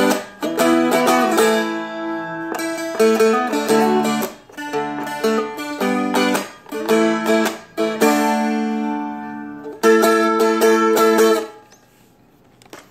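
Seagull Merlin, a small four-string dulcimer-style instrument, strummed in a steady pattern of ringing chords. The playing stops about a second before the end and the last chord fades out.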